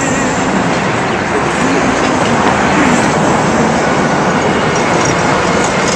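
Loud, steady street traffic noise from vehicles passing close by at a downtown intersection.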